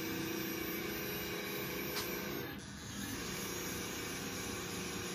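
Teknic ClearPath servo motor spinning a Spinea TS 140E cycloidal-drive rotary table at its top speed: a steady motor whine that briefly drops away a little past halfway through, then resumes.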